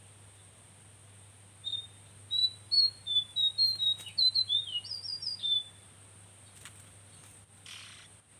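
Small songbird singing a rapid run of sharp, high chirping notes for about four seconds, followed by a brief scratchy noise near the end.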